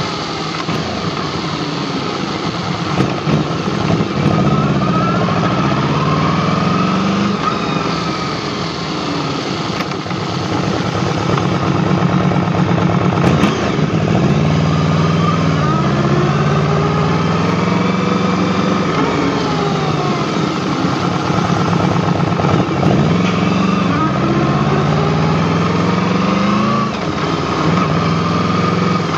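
Yamaha VMAX V4 motorcycle engine running while the bike is ridden, its note climbing and dropping in pitch several times as it accelerates, shifts and eases off, over steady road and wind noise.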